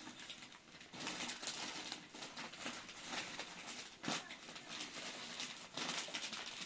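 Plastic bag and snack wrappers rustling and crinkling as they are handled, in irregular crackly bursts.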